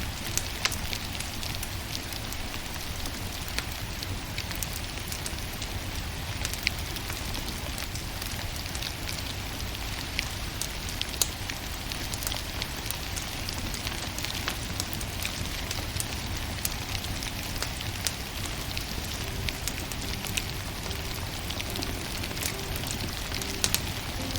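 Firewood burning: a steady crackling hiss and low rumble, with scattered sharp pops throughout.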